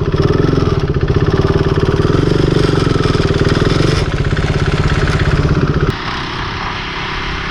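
KTM RC 390's single-cylinder engine running at low revs with a rapid, even beat of firing pulses. About six seconds in it drops to a quieter, steady running sound.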